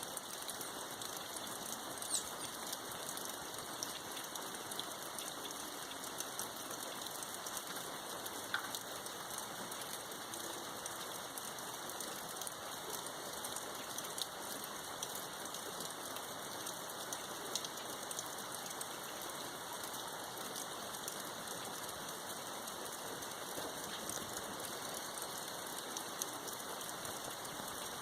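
Steady rain falling, an even hiss with scattered ticks of individual drops and a few louder ones.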